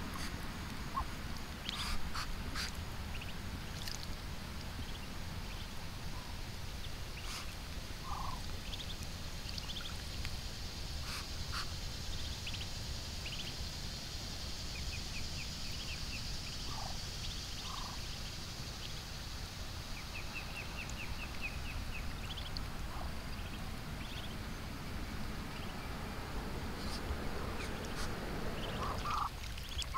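Muscovy ducklings peeping here and there while they paddle and dabble beside their mother on the water, with a few small clicks and splashes from bills at the surface. A steady low rumble runs underneath.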